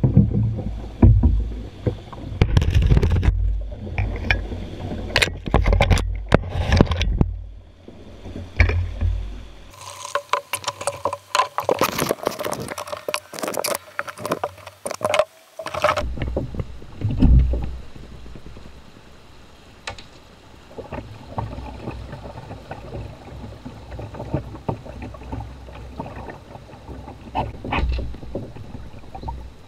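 Shallow, rocky river water running past a canoe, with repeated knocks and scrapes of a canoe pole against the stony bottom and the hull. The knocks come thick and fast through the first half, then the water runs steadier with only an odd knock.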